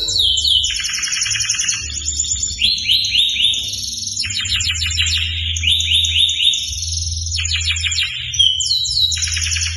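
Domestic canary singing a long, continuous song of rapid trills and repeated falling sweeps that change from phrase to phrase. A steady low hum runs underneath.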